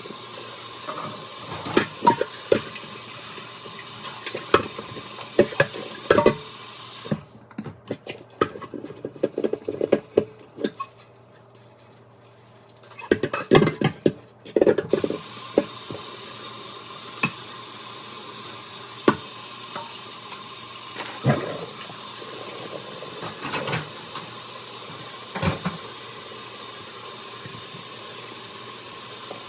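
Dishes being washed by hand in a kitchen sink: the tap runs steadily while plates and utensils clatter. The running water stops for several seconds partway through and then starts again.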